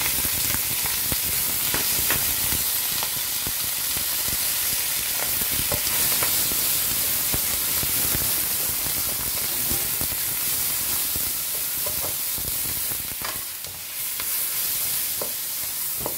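Basil leaves, garlic and ginger sizzling in hot oil in a wok, with a utensil stirring and knocking against the pan.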